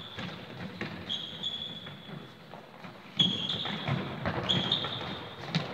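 Sports shoes squeaking on a sports hall floor in several short chirps, mixed with thuds of a football being kicked and running feet. The loudest squeak and thud come a little over halfway.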